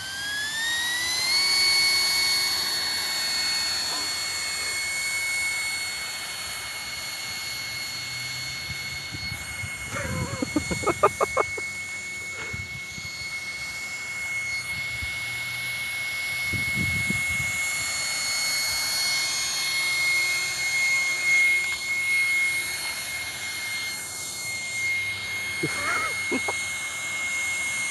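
Brushless electric ducted fan (Viverrine VMD55C20) pushing an Associated RC18B buggy. It spools up with a quickly rising whine over the first second or so, then holds a high, nearly steady whine as the car runs. About ten seconds in comes a brief, louder burst of rapid pulses.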